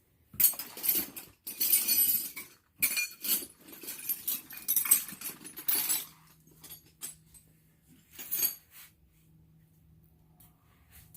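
Clattering and clinking of small hard objects being handled, in a run of irregular bursts for about six seconds. After that only a faint steady low hum is left.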